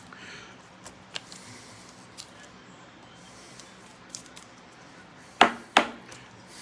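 Trading card packs and cards being handled: faint scattered clicks and a soft rustle, then two sharp taps close together about five and a half seconds in, the loudest sounds.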